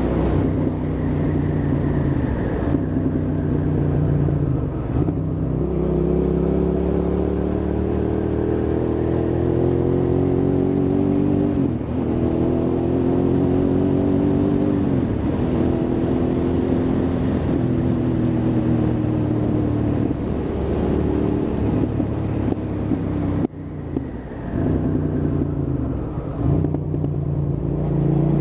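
Hyosung GT650R's V-twin engine accelerating through the gears. The engine note climbs in pitch and drops back at each of several upshifts, with a brief throttle lift near the end before it pulls again.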